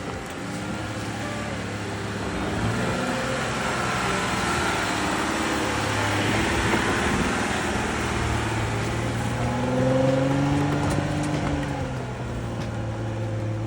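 A 4x4's engine running while driving on a dirt trail, its pitch rising and falling as it speeds up and slows, over steady road and tyre noise.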